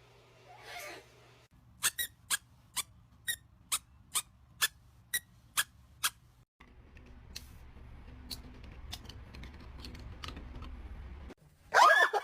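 A pet parrot squeaking, about ten short, sharp squeaks in an even run of roughly two a second, then a steady low hum in the room, with a louder call at the very end.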